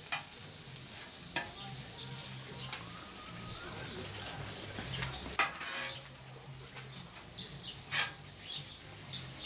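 Thin-sliced meat sizzling as it fries, a steady hiss with a few short sharp knocks, over a low hum.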